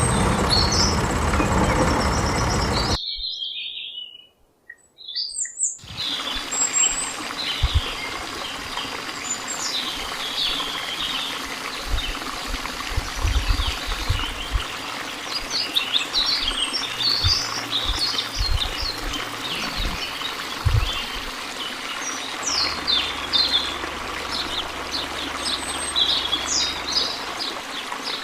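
Small birds chirping repeatedly in short, high calls over a steady outdoor background hiss, with a few low thumps along the way. The first few seconds carry the end of louder background music, which cuts off before the bird sounds take over.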